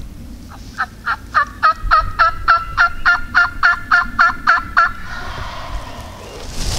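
Turkey yelping: a steady run of about sixteen two-note yelps, roughly three or four a second. It starts soft, grows louder after the first few notes, and stops about five seconds in.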